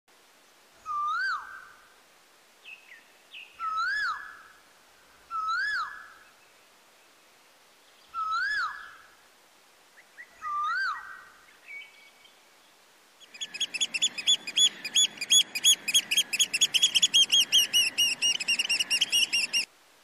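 Bird-like animal calls: five separate swooping whistled calls a few seconds apart, then a loud, rapid run of high chirps, about five a second, lasting some six seconds and cutting off suddenly.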